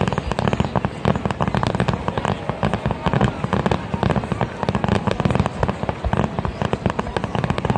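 Fireworks going off in a dense, continuous barrage: many bangs and crackles a second with no pause.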